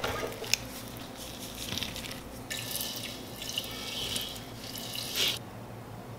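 Water running from a kitchen tap into a stainless steel sink for a few seconds midway, as chunks of raw fish are rinsed. Before it come a few light taps of a knife on a plastic cutting board as the fillet is sliced.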